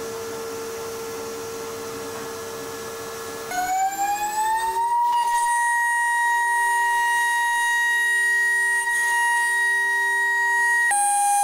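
High-frequency milling spindle of a DATRON M8Cube CNC mill, a 2.0 kW unit, whining as it mills an aluminium front panel. It runs at a steady pitch at first, glides up in pitch about four seconds in, and holds a high steady whine. Its pitch steps down slightly near the end.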